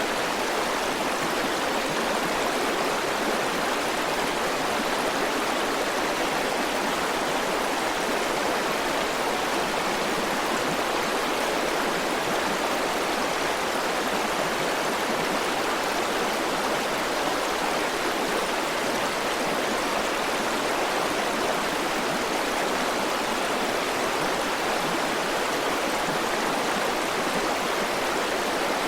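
River water flowing over rocks, a steady, even rushing with no change.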